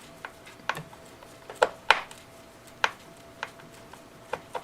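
Sharp, irregular clicks and taps of small hard parts handled and fitted as a rocket rail button and its screw are set into the airframe, with two louder clicks a little under two seconds in.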